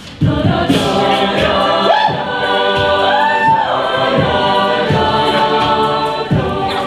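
Mixed a cappella vocal group singing a wordless intro in layered, sustained harmony, with sliding high notes and a steady beat. The voices come in together just after the start.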